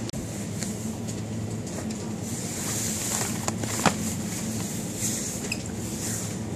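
Supermarket background: a steady electrical hum under a general noise haze, with a few sharp clicks and knocks, the loudest about four seconds in, as fireworks boxes are handled in a wire shopping cart.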